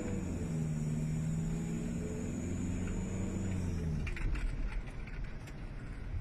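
Hyundai Grand Starex's D4CB diesel engine running steadily while the van is driven. The note eases down and drops away about four seconds in, leaving rougher road noise with a few clicks.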